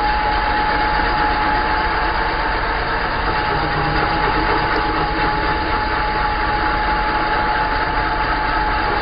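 Electric drill spinning a hole saw through plywood, heard as a steady drone with a constant whine, slowed down by the slow-motion recording.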